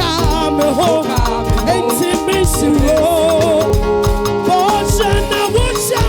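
Upbeat contemporary praise music with a steady dance beat, vocal singing and a live band.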